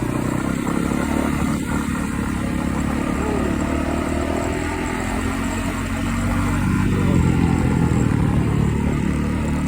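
Motorcycle engine running steadily as the bike rides a trail, picking up a little from about seven seconds in.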